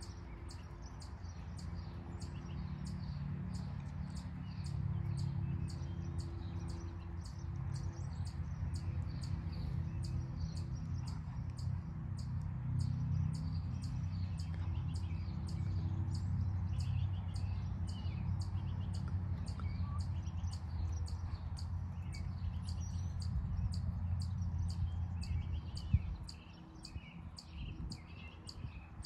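Wind rumbling on the microphone, dropping away suddenly near the end just after a single knock, with birds chirping throughout.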